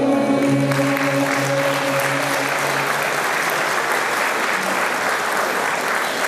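Audience applauding at the end of a song. The last held note of the choir and folk-instrument ensemble fades out beneath the clapping within the first few seconds.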